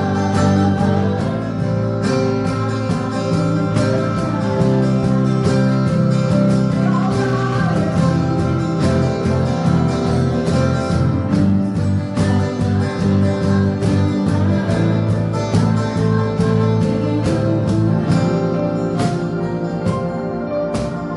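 Worship band music led by guitar, steady and continuous, with some singing.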